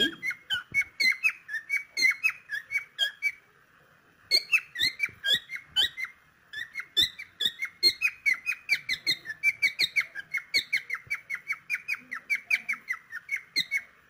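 Cockatiel chattering: a fast string of short whistled chirps, about four or five a second, in three runs with two brief pauses.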